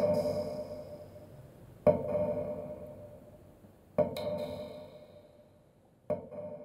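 Struck percussion ringing out: a sharp hit about every two seconds, three in all, each followed by a ringing tone that fades slowly. The ringing of a hit just before the start carries on at the beginning.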